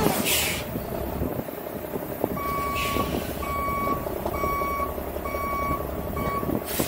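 A vehicle's reversing alarm beeping, five single-pitch beeps about a second apart, over a low engine rumble. A short hiss comes just before the beeps begin and another as they stop.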